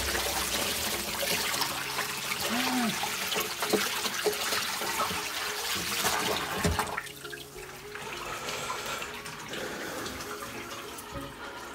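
A stream of water from a hose splashing over live rock in a tub of water, rinsing it clean. The spray stops about seven seconds in, leaving quieter sloshing and dripping.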